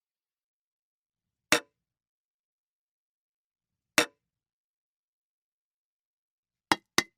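Aluminium drink can making four short, sharp metallic clicks: single ones about a second and a half in and at about four seconds, then two quick ones in a row near the end.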